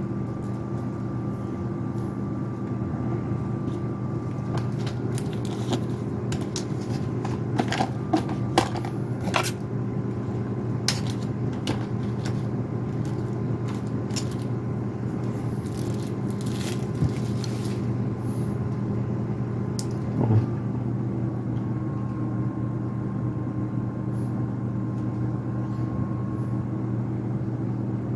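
Steady low machine hum with a faint high whine that drops out after about five seconds and comes back about two-thirds of the way through. A run of light clicks falls in the middle, with one louder knock about twenty seconds in.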